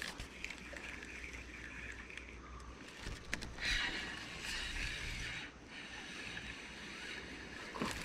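Creek water sloshing and splashing, in two louder hissing stretches, under a low rumble, with a few sharp clicks.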